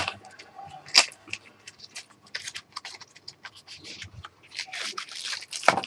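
A small cardboard Buck knife box being opened by hand, its end flap scraped and pried open. There are many sharp clicks and scrapes with some rustling, the loudest about a second in and near the end.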